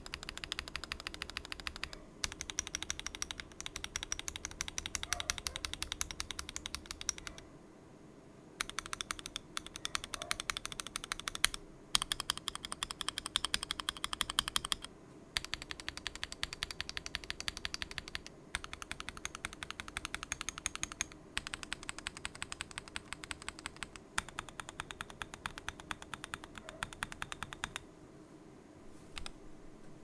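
Sustained fast typing on an AKKO ACR Pro Alice Plus mechanical keyboard with stock Akko Crystal linear switches, a PC plate, gasket mounting and ASA keycaps: dense runs of key presses in bursts with brief pauses, stopping about two seconds before the end.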